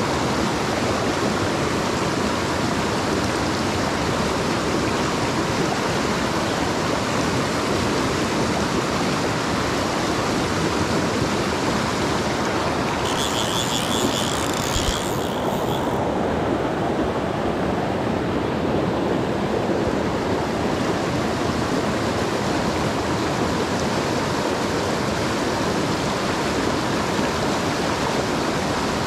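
Fast river running high with runoff, rushing steadily over rocks. About halfway, a fly reel's click ratchet buzzes for a couple of seconds as line is pulled off it.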